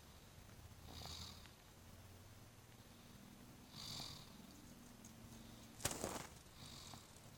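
Faint snoring: a low rumble on each breath, with breathy hisses about one and four seconds in and a sudden sharp sound just before six seconds.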